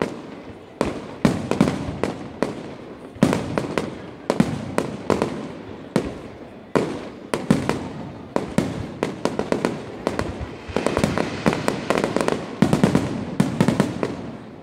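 Aerial firework shells bursting one after another, each bang followed by a fading tail of echo. Near the end the bursts come thick and fast.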